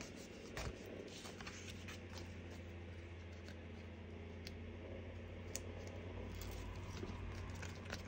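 Faint clicks and light rustles of cards and craft supplies being handled on a cluttered table, over a steady low hum.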